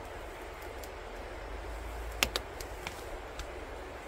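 Foam window insert being handled and set against a plastic tailgate: a few light clicks and taps, the sharpest a quick pair about two seconds in, over a steady low background rumble.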